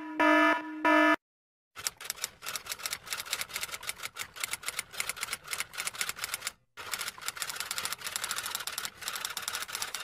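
An alarm beeping in short, even pulses, the last two at the start, then after a brief pause a typewriter's keys clattering in a fast, uneven run of strikes, with one short break about two-thirds of the way through.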